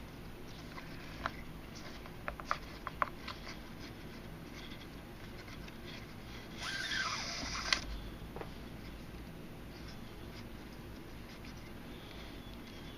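Paracord being handled and knotted: a few small clicks early on, then about seven seconds in a rasp lasting about a second as the cord is drawn tight.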